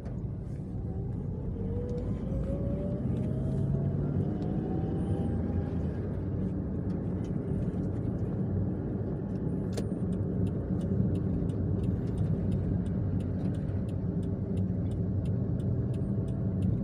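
Perodua car driving, heard from inside the cabin: engine and road rumble building as it pulls away, with a rising whine over the first few seconds as it speeds up. A light, regular ticking, about three a second, runs through the second half.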